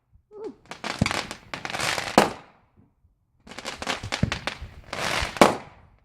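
Fireworks going off in two rounds of rapid crackling pops, each building to a loud hissing burst, with a short quiet gap between them.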